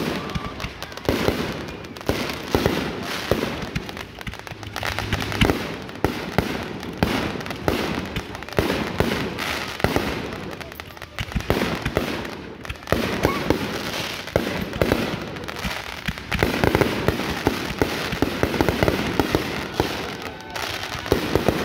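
Consumer firework cakes firing a dense, continuous finale barrage: rapid overlapping launch shots and aerial bursts, with no pause.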